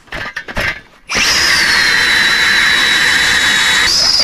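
Ice auger powered by a cordless drill, running for about three seconds. Its high whine sags slightly as it bites into the ice, then jumps higher near the end as the load comes off.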